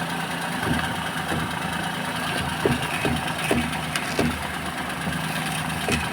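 Maruti Suzuki Alto 800's three-cylinder engine idling steadily, with short irregular clicks as the steering is turned. The clicks come from worn, ungreased front strut top mounts that make the coil spring turn in jerks.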